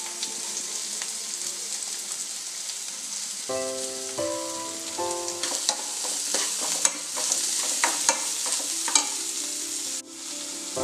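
Chopped onions sizzling in hot oil in a nonstick kadai as they begin to fry. From about halfway, a plastic spatula stirs them, with quick clicks and scrapes against the pan.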